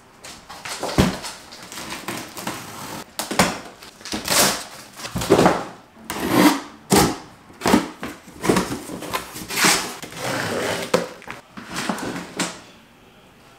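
Cardboard shipping boxes being broken down by hand, with the packing tape cut with scissors: a string of loud scraping, rustling cardboard sounds, one to two a second, that stops near the end.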